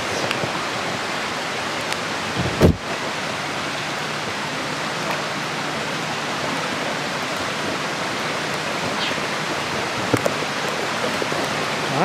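Steady hiss of rushing water from a rocky stream and waterfall. One dull thump about two and a half seconds in.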